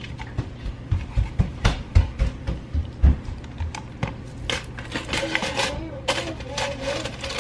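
Kitchen handling noise: plastic spoon, tub and cup clicking and knocking as ice cream is scooped. A run of low thumps comes in the first few seconds, then a quicker patter of clicks.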